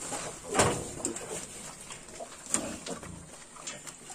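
Yorkshire pigs grunting and snuffling: a few short grunts, the loudest about half a second in.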